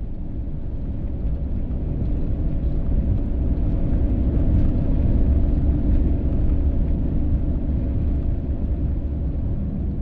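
Steady low rumble of a vehicle's engine and tyres heard from inside the cab while driving down the road. It grows louder over the first few seconds and eases off a little toward the end.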